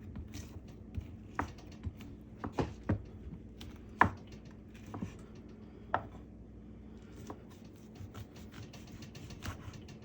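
Knife cutting cooked chicken breast into little pieces: irregular sharp taps, the loudest about four seconds in and another about six seconds in.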